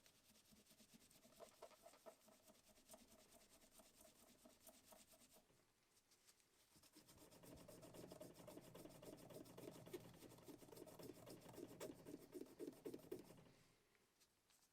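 Singer 15-class sewing machine mechanism turning over, a faint even run of rapid clicks. It stops briefly and starts again louder.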